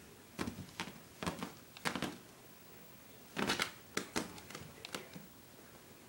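A cat's paws scrabbling and pouncing on a fabric bedspread while chasing a laser dot: a string of irregular scuffs, rustles and light thumps, busiest in the second half.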